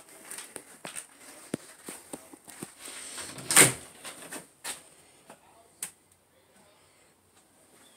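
Scattered footsteps and small knocks, with one loud bang of a door being opened about three and a half seconds in; a few light knocks follow.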